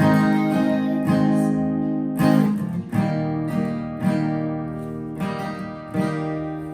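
Acoustic guitar strumming slow chords, each strum left to ring and fade, with the overall level dying away near the end as the song closes.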